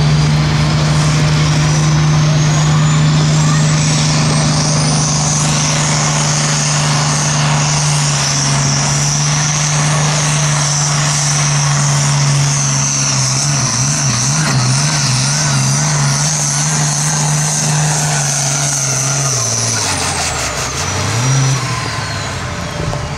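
Diesel engine of a Super Sport class pulling tractor running flat out under load as it drags a weight-transfer sled, with a high whistle climbing over the first several seconds and then holding. The engine note wavers in the second half, then drops away about twenty seconds in.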